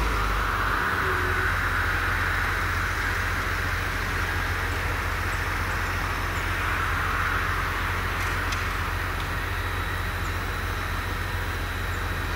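Tractor engines running steadily while working a pile of chopped maize on a silage clamp: a constant low drone under a broad hiss that swells and eases slowly.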